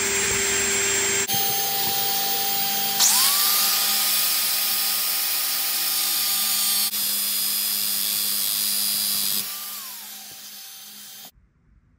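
Angle grinder grinding down a steel fuel-injector hold-down bolt that is spun in a cordless drill's chuck. Two motors run together with a steady grinding hiss. A motor whine rises about three seconds in and falls away near the end, the sound jumps abruptly a few times, and it then cuts off.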